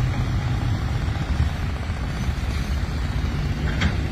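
Steady low rumble and hiss of a car in motion, heard from inside the cabin.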